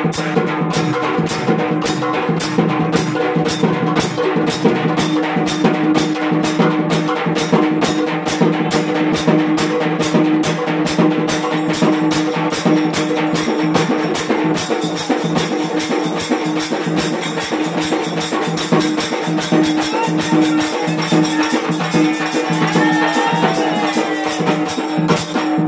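Devotional folk music with a fast, steady beat on hand drums, struck partly with sticks, over a steady held tone; no singing.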